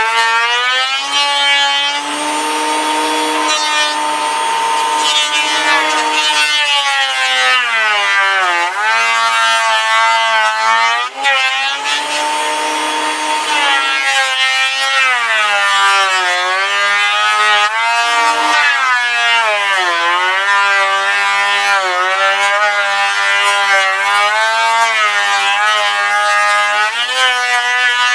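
An electric woodworking machine whines steadily while cutting wood. Its pitch sags and recovers again and again as it takes the load of each cut.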